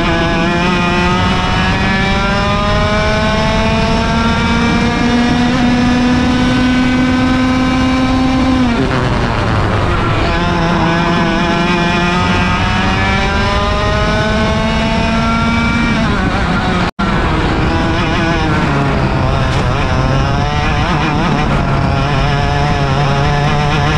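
Onboard sound of a 100cc two-stroke kart engine at racing speed. Its pitch climbs steadily for several seconds as the kart accelerates, then falls sharply as the driver lifts off for a corner. This happens twice, and a third climb starts near the end. The sound cuts out for a split second about seventeen seconds in.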